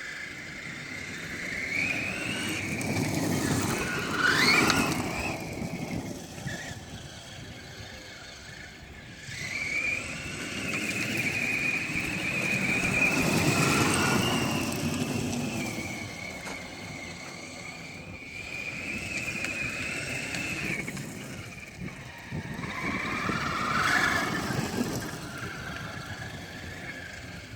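Electric RC truck towing a fifth-wheel trailer while driving: a high motor and gear whine that rises and falls in pitch as it speeds up and slows down. It swells with rougher tyre-on-ground noise about four seconds in, again around the middle, and near the end.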